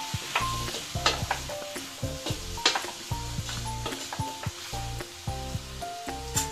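Chopped tomatoes and vegetables sizzling in oil in a stainless steel kadhai as a spatula stirs them, scraping and knocking against the pan several times. Soft background music with a steady bass plays underneath.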